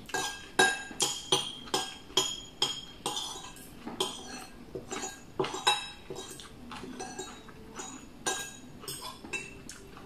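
Metal cutlery clinking and scraping against a ceramic plate while eating: sharp, ringing clinks about two a second, thinning out after about six seconds.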